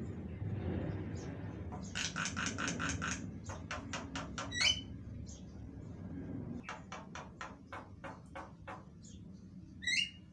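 Javan mynas calling: rapid runs of dry clicking notes, with a loud, wavering high call about four and a half seconds in and another near the end.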